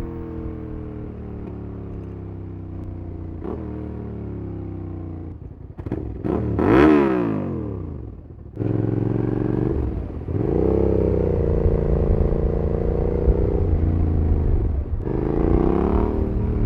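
Suzuki SV650 V-twin with an aftermarket Cobra SC3 exhaust, heard from the rider's seat: the engine note falls away as the bike slows, then picks up and runs at higher revs with short dips and rises as the rider works the throttle. About seven seconds in there is a brief, louder sweep that rises and then falls in pitch.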